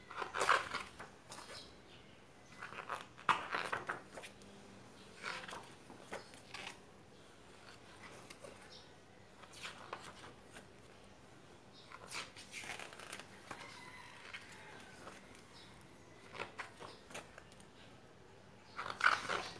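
Pages of a thick photobook being turned by hand: a short paper swish every few seconds, the loudest just after the start and near the end.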